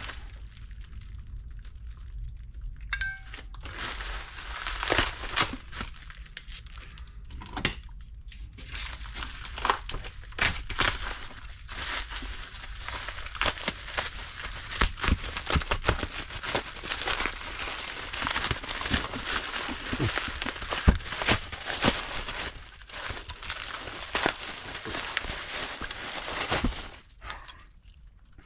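Bubble wrap crinkling and crackling with packing tape tearing as a carburettor is unwrapped by hand. Sparse crackles at first, then dense, continuous crinkling from about eight seconds in that stops shortly before the end.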